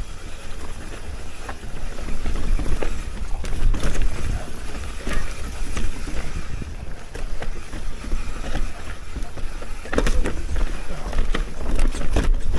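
Commencal Meta TR full-suspension mountain bike descending a rocky dirt trail: wind buffeting the microphone over tyres rolling on dirt and stones, with scattered clacks and rattles as the bike hits rocks.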